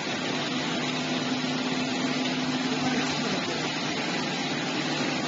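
Vertical stainless-steel colloid mill running: a steady whirring hum from its motor and rotor with a constant low tone, over the splash of liquid pouring from the discharge pipe into a steel bucket.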